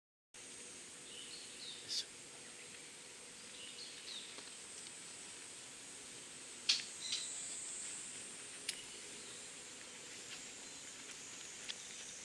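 Steady high-pitched drone of insects in summer countryside, with a few short bird chirps in the first four seconds. Several sharp clicks stand out over it, the loudest about two seconds in and again near the middle.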